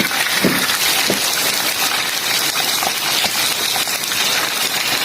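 Oil and chili sauce sizzling in a hot pan while a stir-fry cooks, a steady hiss with a few light knocks of the cooking utensil.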